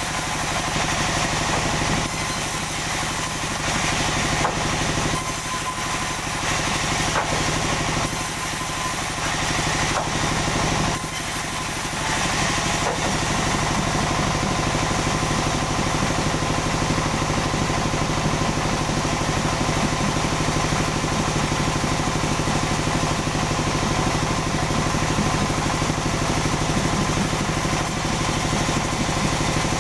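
Sawmill running: a steady engine-like drone with a hiss above it, shifting unevenly over the first twelve seconds or so and then holding steady.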